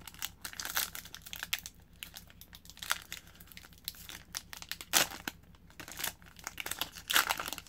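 Foil wrapper of an Upper Deck Tim Hortons Team Canada hockey card pack crinkling and tearing as it is pulled open by hand, in irregular crackles, with louder crackles about five seconds in and again near the end.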